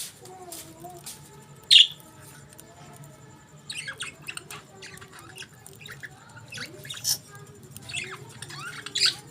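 Budgerigars chirping and chattering in scattered short calls, with one loud, sharp squawk about two seconds in.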